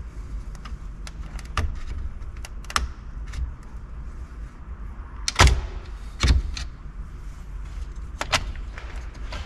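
Scattered plastic clicks and rattles as a clock spring and its wiring connectors are unclipped and worked out of a Jeep TJ steering column by hand. Two sharper knocks come a little past halfway, over a low steady hum.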